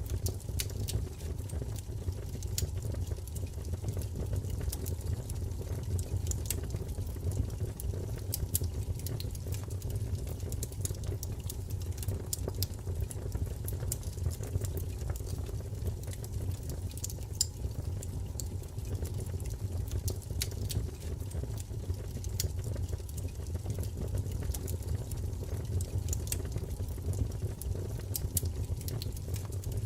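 Wood fire burning in a fireplace: a steady low rumble of flames with many scattered, irregular crackles and pops.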